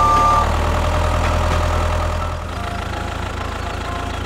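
Tractor engine idling with a steady low rumble. A horn-like chord of steady tones sounds over it and stops about half a second in.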